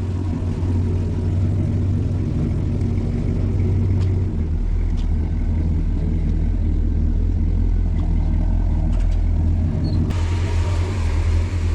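A low, steady engine rumble, with more hiss coming in about ten seconds in.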